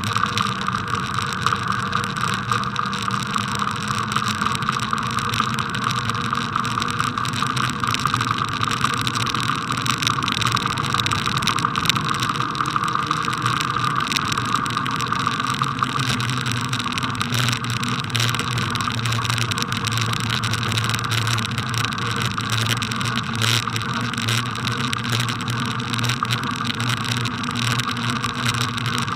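Riding noise picked up by a bicycle-mounted camera: a steady rumble from the tyres on packed snow with a continuous fine rattle from the shaky camera mount.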